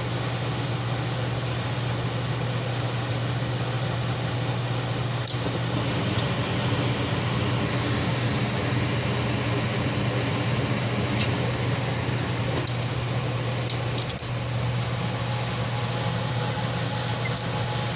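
Furnace blower running steadily with a low hum and airy rush, with a few light metallic clicks and clinks scattered through it.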